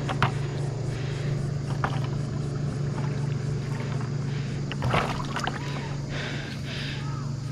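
Splashing in river shallows as a plastic bucket is dunked and worked through the water to scoop up a small hooked threadfin salmon, with short sharp splashes, the loudest about five seconds in. A steady low hum runs underneath.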